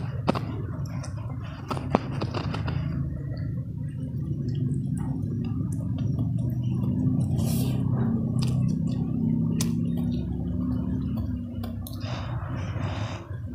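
Close-up wet chewing and mouth sounds of a person eating with their hands: leafy greens, grilled fish and rice being chewed, with many short sharp lip smacks and clicks.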